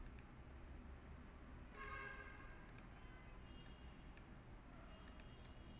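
Computer mouse button clicking about six times, short sharp clicks spaced irregularly, over faint low room hum.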